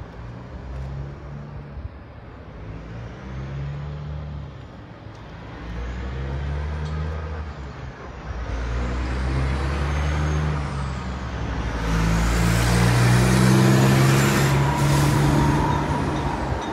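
A heavy vehicle's engine running, its low rumble shifting in pitch and growing louder, with a rush of noise building over the last few seconds.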